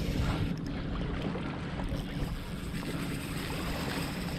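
Wind buffeting the microphone and water around a fishing kayak at sea, a steady noise with a faint low hum underneath.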